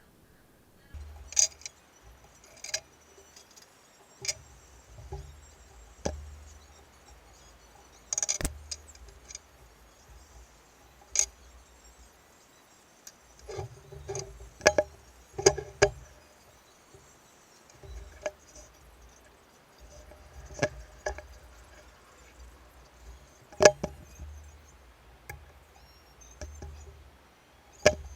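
Metal parts and tools of a pillar drill head being handled during disassembly: irregular clinks and knocks, some ringing briefly, over dull handling thuds.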